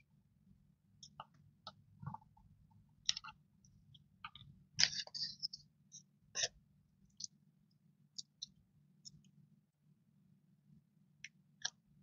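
Hands handling washi tape rolls and a plastic-and-card tape package: scattered light clicks, taps and crinkles, busiest about five seconds in, over a faint steady low hum.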